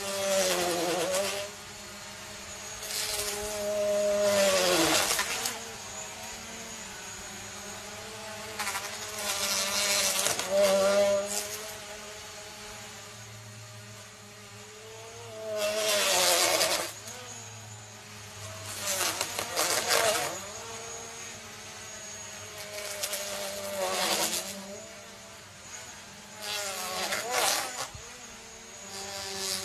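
A small quadcopter drone's propellers whine steadily, the pitch sliding up and down as it hovers and manoeuvres. Seven loud rushing surges come every few seconds, the pitch dipping in several of them, as the drone pushes into a paper wasp nest and its propellers tear at it.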